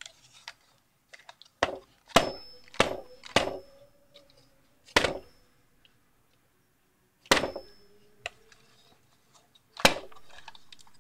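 Metal body of a Bolex H16 Reflex cine camera being struck, about seven sharp knocks at irregular intervals, several leaving a short metallic ring. The knocks jar the movement plate loose from the sealing mastic that holds it in the body.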